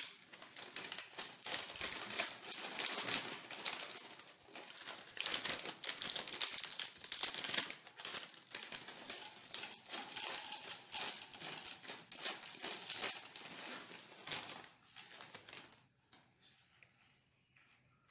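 Plastic cereal packet crinkling as it is handled and cereal is poured from it into a ceramic bowl, an irregular crackle that stops about 16 seconds in.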